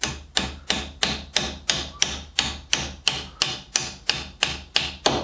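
A small hammer tapping the end of a coloured pencil in a steady run of sharp strikes, about three a second, driving the pencil down into a tight-fitting hole in a wooden block.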